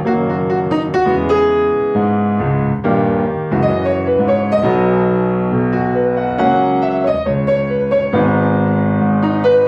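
Piano music playing held chords with a melody over them, changing notes about once a second.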